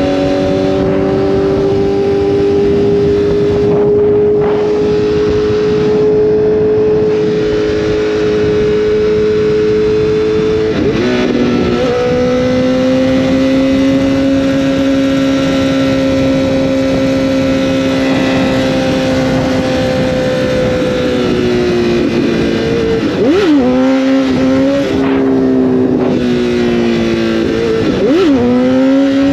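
Honda CBR1000RR inline-four engine running at a steady cruise under heavy wind rush. The engine note changes with gear shifts about 11 seconds in and again near the end.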